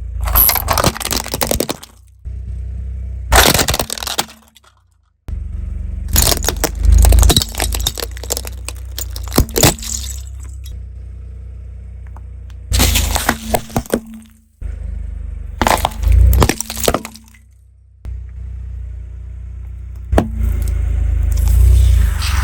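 Things being crushed, cracking and breaking in about six separate bouts of sharp crackling, over a steady low rumble.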